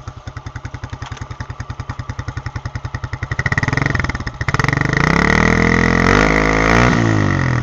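BTS YRF150 trail bike's 150 cc engine idling with an even putter, then revved up about three and a half seconds in, held high for a few seconds and let back down near the end.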